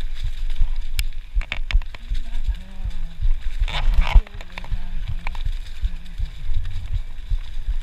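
Mountain bike descending a rough dirt trail at speed: wind buffeting the camera microphone and the bike rattling over bumps, with a hard jolt just after four seconds in.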